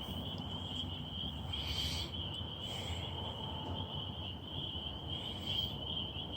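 Crickets chirping in a steady, continuous high-pitched chorus, pretty loud, with a few brief higher rasping sounds over it.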